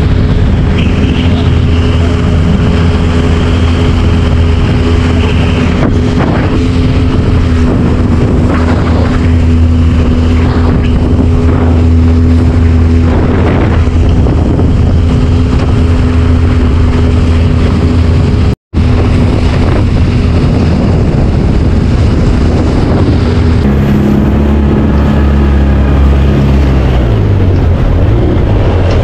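Motorboat engine running steadily at speed, with wind on the microphone. The sound cuts out for an instant about two-thirds through, and the engine note changes and shifts over the last few seconds.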